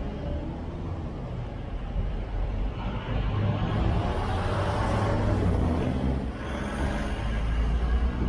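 City street traffic: the low engine rumble and road noise of passing cars and other vehicles, swelling louder for a few seconds in the middle.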